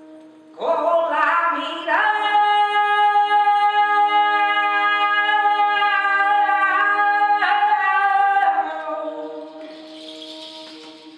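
A woman singing one long held note, sliding up into it and then fading away, over a steady low drone.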